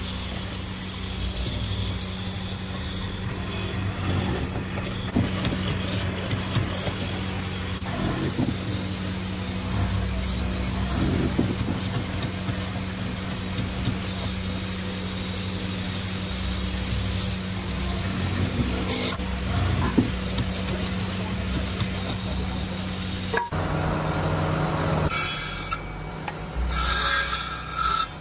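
Electric drill-press-style mortising machine running with a steady motor hum while its spinning bit chews into a hardwood rail, the cutting noise rising and falling as the wood is fed. About 23 seconds in the sound changes suddenly to a table saw's circular blade spinning.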